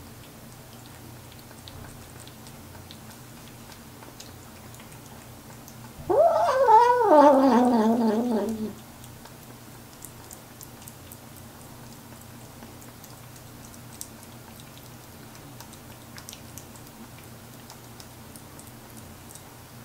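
A kitten eating wet food from a bowl lets out one wavering, growly cry of about two and a half seconds, rising and then sinking in pitch. Faint clicks of chewing and licking at the food come before and after it.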